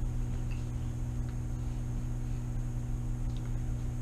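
Room tone: a steady low hum of ventilation and equipment, with a faint high whine above it.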